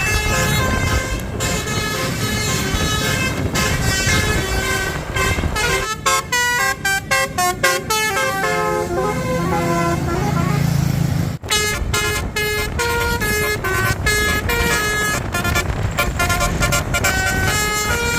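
Basuri multi-tone "telolet" bus horn playing a melody of quickly changing notes, with a fast run of short clipped notes midway, over a low rumble.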